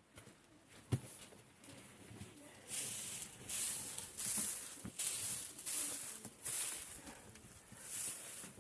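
Footsteps crunching in snow at a walking pace, about one step every 0.7 seconds, after a single knock about a second in.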